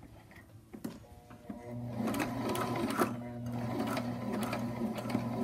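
Electric sewing machine starting about a second and a half in and running steadily, its motor humming as the needle stitches through coiled cotton clothesline rope. A few light clicks come before it starts.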